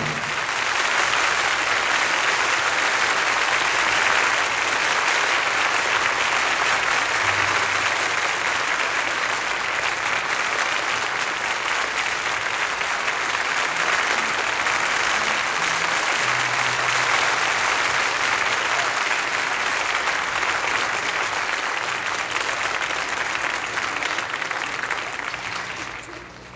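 Theatre audience applauding long and steadily at the end of a live song, dying away near the end.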